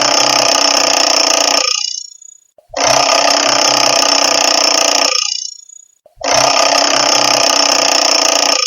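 Classic mechanical alarm clock bell ringing in bursts of about two and a half seconds with short pauses between: one burst stops about two seconds in, the next rings from near three seconds to about five, and a third starts about six seconds in.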